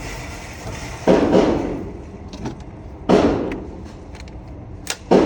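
Gunshots at a shooting range: three loud shots about two seconds apart, each trailing off in an echo, with a few faint clicks between them.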